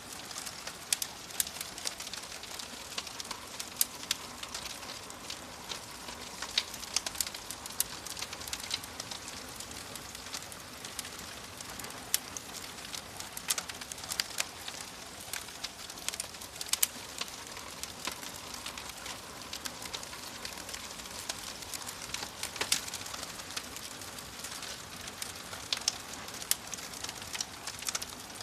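Wood fire crackling in a fireplace: a steady hiss with frequent sharp, irregular pops and snaps.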